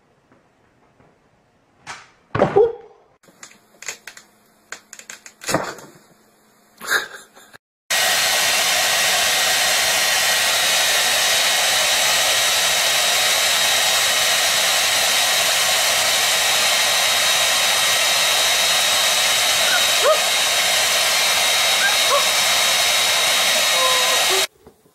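A few scattered knocks and thumps. Then a handheld hair dryer runs, a loud steady blowing noise with a faint whine in it, starting abruptly about eight seconds in and cutting off just before the end.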